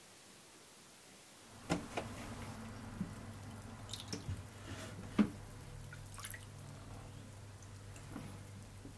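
Water dripping and splashing in a tray as a glass carbon-print plate is worked in it, with a low steady hum underneath. The sounds begin about a second and a half in, and the sharpest splash comes about halfway through.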